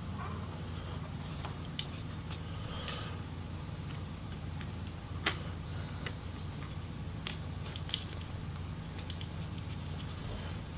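Scattered light clicks and taps of a small screwdriver and fingers working the screws of a MacBook Pro logic board, one sharper click about five seconds in, over a steady low hum.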